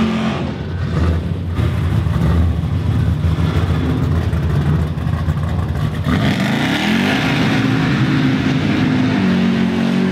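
Car engine running and revving loudly, its pitch climbing about six seconds in and then holding a steady note near the end.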